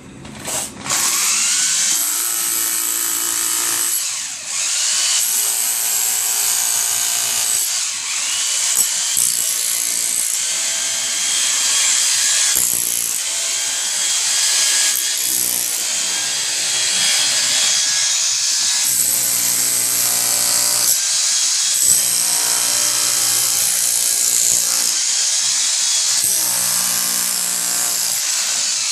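Rotary hammer chiselling out the bottom bricks and mortar of a brick pier, starting about a second in and running with a few brief pauses.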